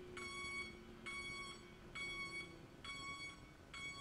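Electronic warning beeper sounding a steady series of identical high beeps, each about half a second long, roughly one a second.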